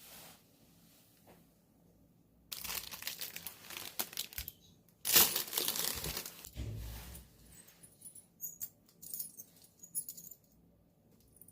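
Plastic packaging crinkling and being torn open, starting a couple of seconds in and loudest about halfway through, followed by scattered light clicks and rustles.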